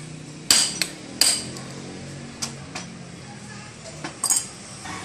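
Sharp metal taps on an air-conditioner fan motor during a bearing replacement: about six separate strikes, the strongest in the first second and a half, and a quick double tap near the end, each ringing briefly.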